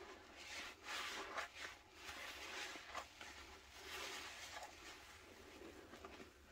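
Foam-soaked sponges squeezed and kneaded by hand in a basin of thick pine-cleaner suds: wet squelching with crackling foam, in repeated bursts, loudest about a second in and again around four seconds.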